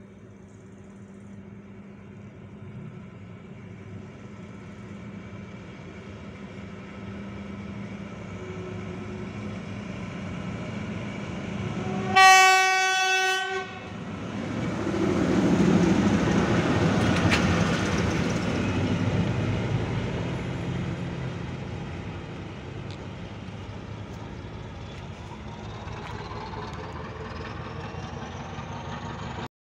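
A diesel shunting locomotive approaches with its engine growing louder and gives one horn blast of about a second and a half, about twelve seconds in. Its engine then runs loudest as it passes and fades as it moves away.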